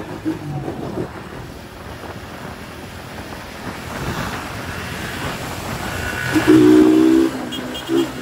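Wind and road noise on a moving motorcycle, then a vehicle horn sounds about six and a half seconds in: one long steady honk, the loudest sound here, and a short second honk near the end.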